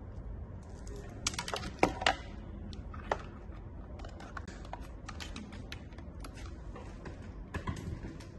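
Sharp plastic clicks and taps from hands handling a white acrylic 3D LED digital clock and its cable. A quick run of clicks comes about a second in, lighter scattered ticks follow through the middle, and another cluster comes near the end.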